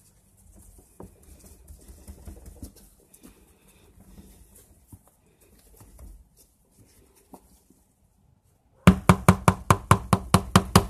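Metal spoon scraping faintly through moist hardwood sawdust in a plastic tub as it is levelled, then near the end a quick run of loud knocks on the tub, about seven a second for two seconds.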